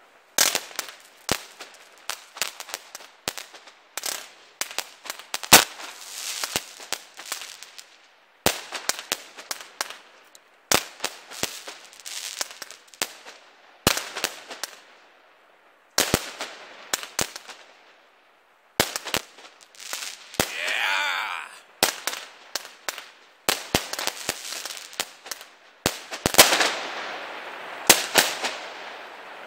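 Weco Metropolis 101-shot firework battery firing: rapid runs of sharp launch bangs and bursts with crackle, in several volleys broken by short pauses. A wavering whistle sounds about two-thirds of the way through, and the last volley trails off in crackling.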